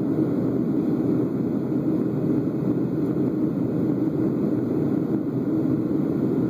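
Steady, even drone of engine and air noise inside an airliner cabin in flight, with no distinct events.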